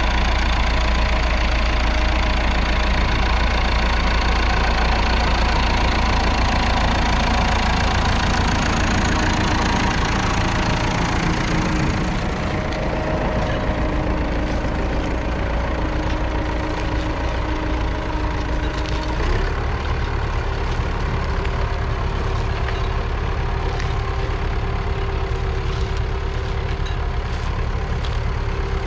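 1963 Massey Ferguson 65's 3.3-litre four-cylinder diesel engine running steadily. The sound softens slightly about twelve seconds in, and the engine note steps up in pitch about two-thirds of the way through.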